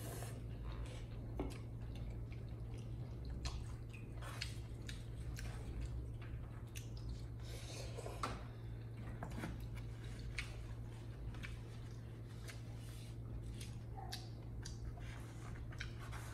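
Noodles being eaten: scattered short slurps and chewing sounds over a steady low hum.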